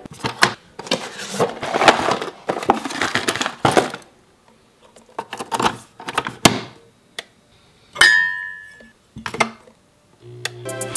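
Handling a Nespresso capsule coffee machine: clatter and clicks as the capsule lever is lifted and shut and the capsule is loaded, with a short ringing clink about eight seconds in. Near the end the machine's pump starts with a low hum as brewing begins.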